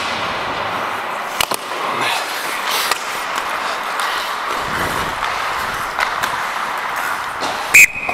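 Ice hockey play: steady skate scraping with a few sharp stick-and-puck clacks, then a very loud referee's whistle blast close to the microphone near the end, its high tone held on more faintly afterwards.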